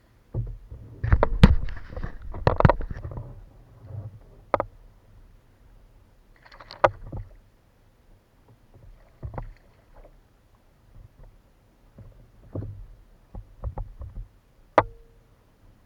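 Sounds from on board a fishing kayak: irregular knocks and clicks against the hull with short splashes of water, busiest in the first few seconds, then sparser.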